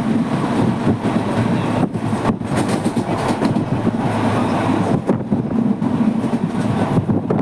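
Indian Railways express train running, heard from on board: a steady rumble of wheels on the rails with some clatter.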